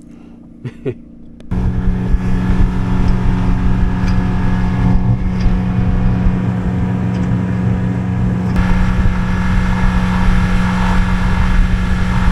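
Honda four-stroke outboard motor running steadily at cruising speed, a loud even drone under a rushing hiss. It starts abruptly about a second and a half in, after a few faint knocks.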